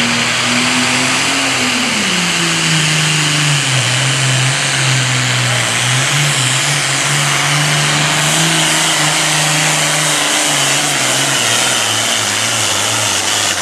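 Case IH Super Farm pulling tractor's 640-cubic-inch single-turbo diesel running hard under load as it pulls the sled. Its note drops about two seconds in, then holds steady and sags again near the end.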